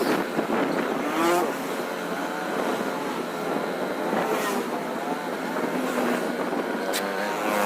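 A motor vehicle's engine running as it is driven along a road, its pitch rising and falling with the revs, over road noise, with a few short knocks.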